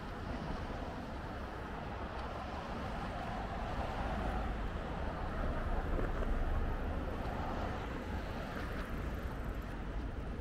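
City street traffic played backwards: steady road noise, with a vehicle passing that grows louder from about four seconds in and fades again near seven seconds.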